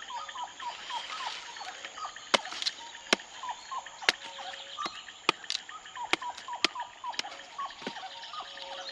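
Sharp snaps and clicks, about ten of them unevenly spaced, as a hand tool cuts and breaks plant stems. Under them frogs keep up short chirping calls, about three a second, over a steady high insect hum.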